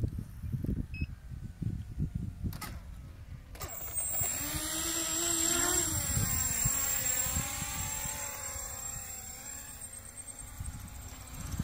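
Whine of small radio-control model aircraft motors on the runway, several tones gliding up and down in pitch as the throttle changes, starting abruptly about three and a half seconds in. Before that, wind buffets the microphone.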